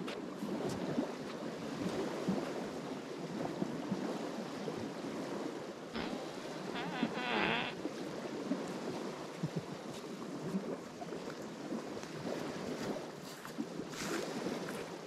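Water rushing and lapping along a sailing yacht's hull as it moves, with wind buffeting the microphone. There are a few light knocks, and a brief higher-pitched sound about seven seconds in.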